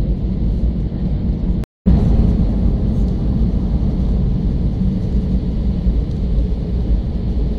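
Airbus A320 jet airliner rolling along the runway, heard from inside the cabin: a loud, steady low rumble of engines and wheels. The sound cuts out completely for a fraction of a second about two seconds in.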